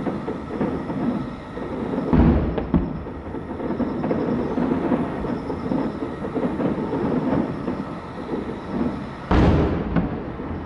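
Aerial firework shells bursting at a distance: a continuous rumble of rolling reports, broken by two heavy booms, one about two seconds in and one near the end.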